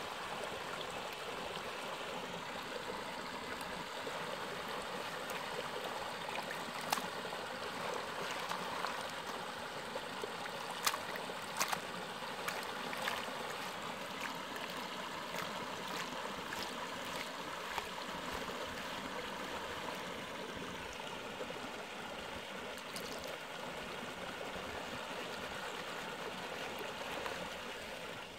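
Shallow creek water running and trickling steadily, with a few light clicks scattered through it.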